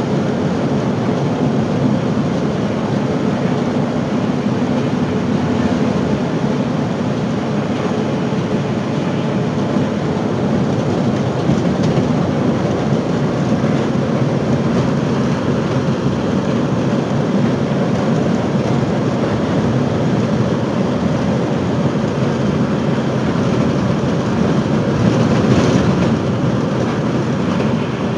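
Bus in motion heard from inside the passenger cabin: a steady low engine and road rumble, with a brief louder, brighter burst near the end.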